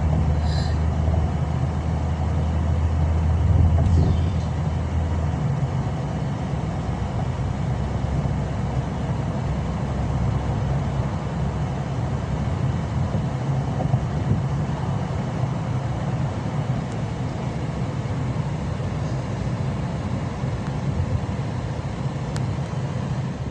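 Steady road and engine rumble heard from inside a moving car; the deepest part of the rumble drops away about five seconds in.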